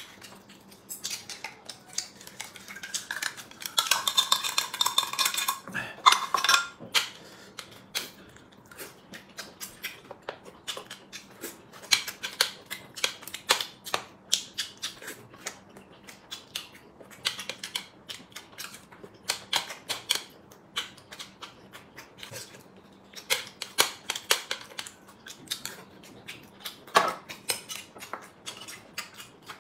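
Chopsticks clicking and scraping against a small sauce jar and a metal tray of dumplings: many short, sharp clinks through the whole stretch, with a louder run of scraping about four to six seconds in.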